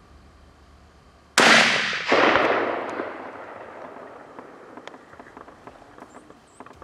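A single scoped rifle shot about a second and a half in, with a second crack of echo right after and the report rolling away and fading over about two seconds.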